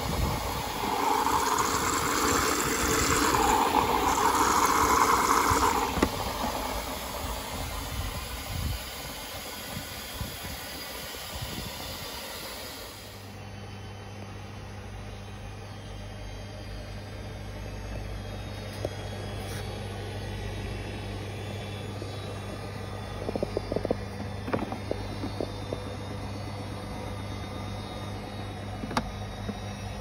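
Hoover Link front-loading washing machine running: water rushes in through the detergent drawer with a loud hiss for the first several seconds, fading away. Later comes a steady low motor hum as the drum turns, with a few light clicks and knocks.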